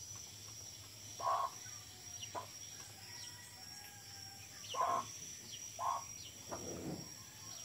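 Domestic hen giving three short clucks while feeding, with a steady high-pitched insect drone behind.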